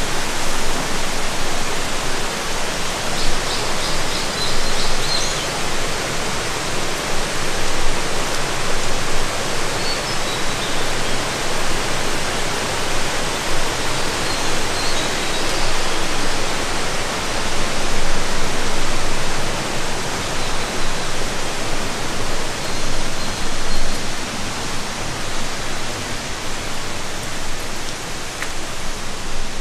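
Steady rush of flowing river water, with a few faint high chirps over it.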